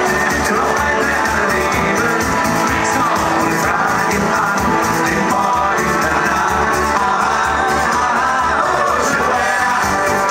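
Live band playing amplified: electric and acoustic guitars and keyboard over a steady beat, with singing into microphones.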